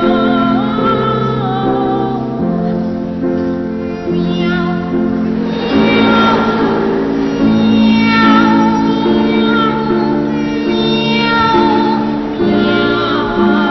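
Children's choir singing in imitation of cats' meows, with high, wavering voices over held instrumental chords.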